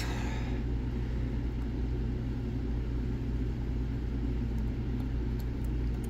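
Steady low droning hum with a few faint light ticks in the second half, from a pick working the finger pins of a Zeiss Ikon TK5 lock cylinder.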